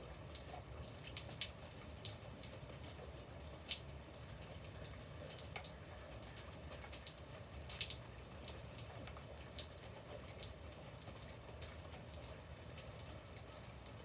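Light rain: scattered raindrops ticking sharply and irregularly on leaves and wet paving over a soft, steady patter.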